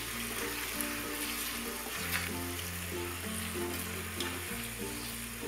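Green mango pickle sizzling in mustard oil and spices in a frying pan, stirred with a wooden spatula that knocks against the pan now and then. Background music with a steady bass line plays under it.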